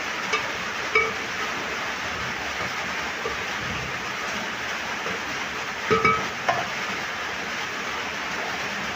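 Greens being stirred in an aluminium cooking pot, with a few ringing clinks of the spoon against the pot, once about a second in and a quick cluster near the middle, over a steady hiss.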